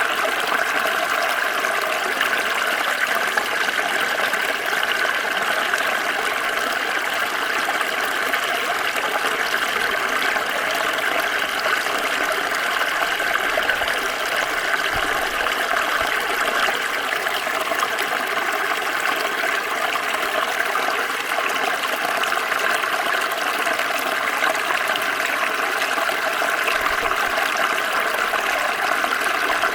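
Water flowing and splashing steadily in a small stream.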